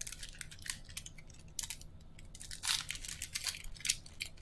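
Foil trading-card pack wrapper crinkling and tearing as it is opened by hand: a quick run of sharp crackles, loudest about two and a half to three seconds in.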